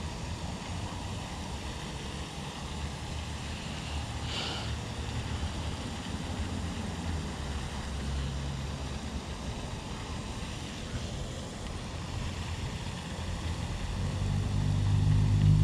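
Steady low outdoor rumble with a faint hiss, and a brief faint sharper sound about four seconds in. Near the end a louder low hum builds up.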